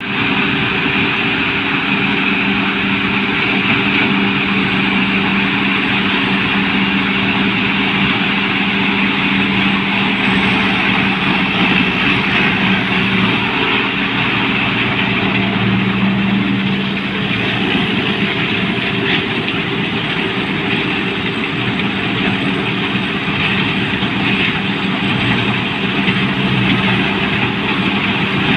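Combine harvester's engine and machinery running steadily, a continuous heavy mechanical drone with a steady hum.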